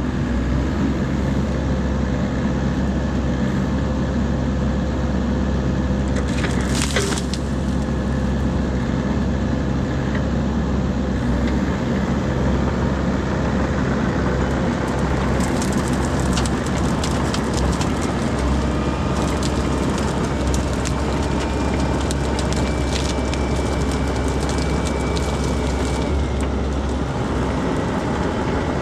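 Mini excavator engine running steadily while the machine crushes and breaks juniper limbs. There is a short burst of breaking about seven seconds in, then many sharp cracks and splintering of wood through the second half.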